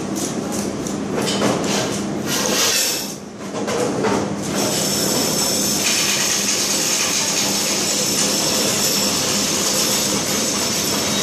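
Banknote counting machine running, riffling notes through its feed. It runs stop-start at first, then steadily from about four and a half seconds in.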